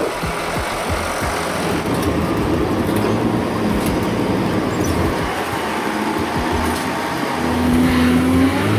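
Heavy truck on the move: engine running under steady road noise, with the engine note rising a little and getting louder near the end.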